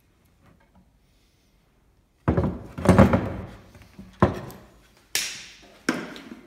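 Steel ammo box knocking and thunking against a wooden workbench as it is handled, to check that its freshly tack-welded handles no longer rattle. A cluster of knocks comes about two seconds in, then three single sharp knocks about a second apart.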